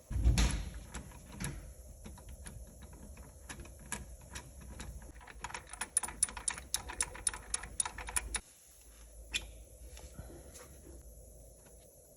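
Metal parts and hand tools clicking and knocking during engine timing-chain work: a knock at the start, scattered clicks, then a quicker run of ticks a little past the middle. A low hum underneath stops about two-thirds of the way through.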